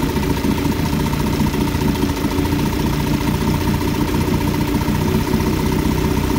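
1958 Johnson 18 hp FD-12 two-cylinder two-stroke outboard idling slowly and steadily while still cold. Its low-speed needle is being leaned out, and the idle is picking up and starting to smooth out as the mixture nears its sweet spot.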